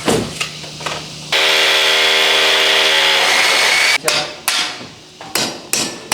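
Hammer knocks, then a power tool runs loud and steady for about two and a half seconds and cuts off suddenly, followed by more separate hammer knocks, during air conditioner installation work.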